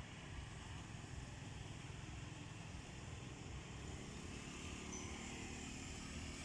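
Steady outdoor background noise: an even low rumble with a fainter hiss, with no distinct events.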